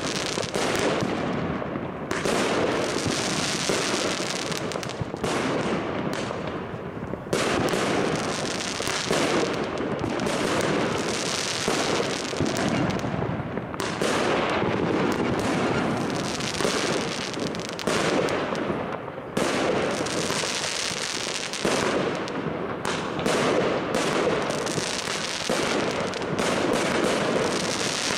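Aerial fireworks going off in a near-continuous barrage: many overlapping bangs and crackles, with a fresh burst every second or two.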